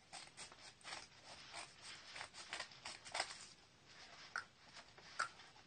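Scissors cutting open a paper mailing envelope: an irregular run of short snips and paper rasps, with a few sharper clicks.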